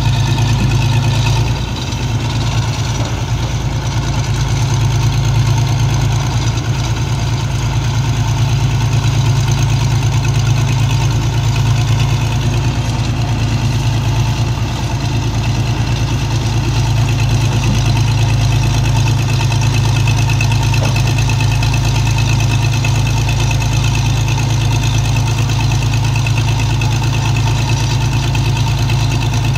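Heavy diesel engine running steadily at a constant speed, with a strong low hum.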